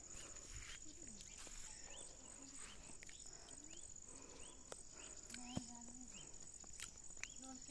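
Insects chirping in a steady high-pitched pulse, about four a second, with faint distant voices and a few light clicks.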